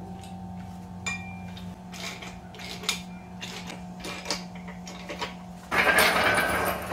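Scattered metallic clinks and knocks of hand tools working on an engine, over a steady hum. Near the end a much louder rushing noise starts.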